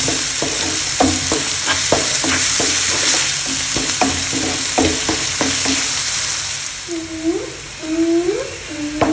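Chopped onion sautéing in hot oil in a pan, sizzling while a spatula stirs it, scraping and tapping against the pan many times. The sizzle dies down about seven seconds in, and a few short rising tones follow near the end.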